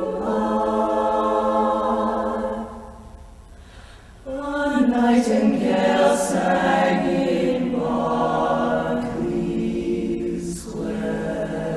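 A cappella vocal group singing held close-harmony chords without instruments; the voices drop away briefly about three seconds in, then come back in full.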